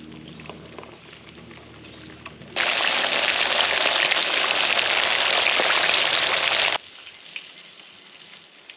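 Battered, butterflied panfish deep-frying in hot oil in a cast iron skillet: a loud, steady sizzle that starts abruptly about two and a half seconds in and cuts off just as abruptly about four seconds later.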